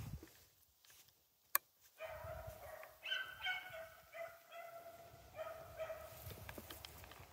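A pack of hunting dogs giving tongue on a rabbit chase: several dogs bay in repeated, overlapping drawn-out calls, faint and starting about two seconds in. A single sharp click comes just before the baying begins.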